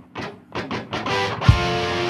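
Rock outro music: quick electric guitar notes build up, then a loud low hit about a second and a half in lands on a held distorted chord.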